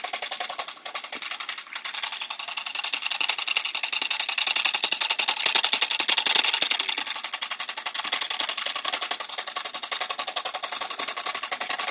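Homemade reed-switch brushless DC motor running: a rapid, even ticking buzz, many ticks a second, that grows a little louder over the first few seconds and then holds steady.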